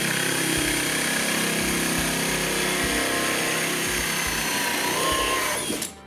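Cordless drill spinning a hole saw through a two-layer plastic kayak deck: a steady motor whine with the rasp of the saw cutting, stopping just before the end. The saw is run in reverse so it burns slowly through the plastic instead of biting and kicking back.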